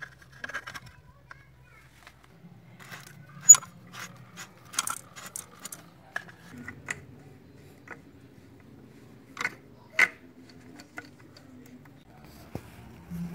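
Scattered clicks and knocks of hands unscrewing the plastic union nuts and brass valve fittings on either side of a water meter, with the sharpest knocks about three and a half and ten seconds in.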